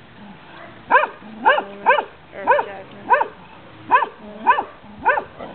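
A dog barking in a steady series of about eight short barks, roughly half a second apart, starting about a second in; the dog is barking at a cat it has spotted.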